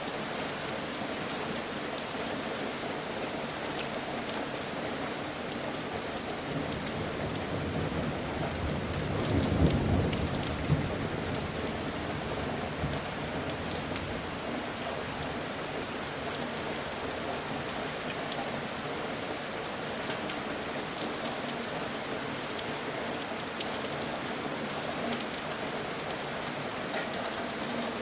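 Steady rain falling, with a low rumble of thunder that builds and fades about a third of the way through.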